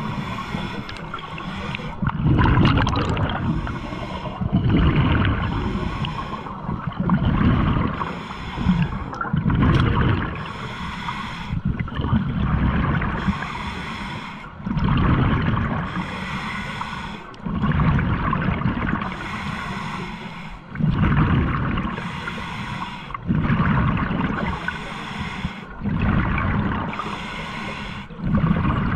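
Scuba diver breathing through a regulator underwater: a breath every two to three seconds, each exhale a gushing rush of bubbles from the regulator, over a low rumble.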